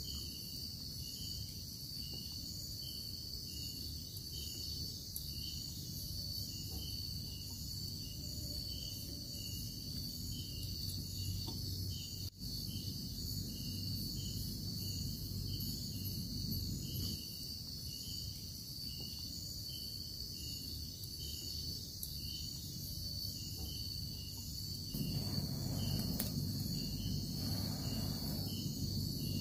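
Chorus of night insects: a steady high trill with a chirping pulse about twice a second, over a low steady rumble. A louder rushing noise comes in near the end.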